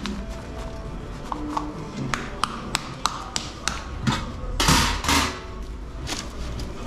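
Steel ice-cream canisters (garrafas) packed in ice: metal lids clinking and a scoop tapping and scraping against the metal as ice cream is dished out. There are two longer, louder scrapes about two-thirds of the way through.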